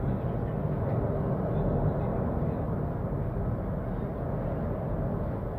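Steady low rumbling of the Cumbre Vieja volcano erupting, its vent fountaining lava, heard from a distance with no separate blasts.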